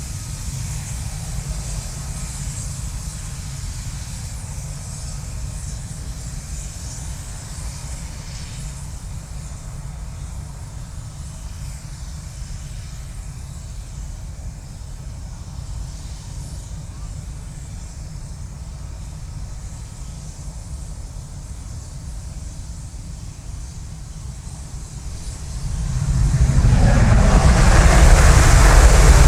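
Eurofighter Typhoon's twin EJ200 turbofan engines on a take-off at military power (full thrust without afterburner): a steady low jet rumble with faint hiss that grows sharply into a loud, full roar about 26 seconds in.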